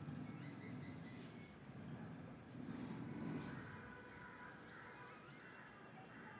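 Faint bird chirps over low background noise.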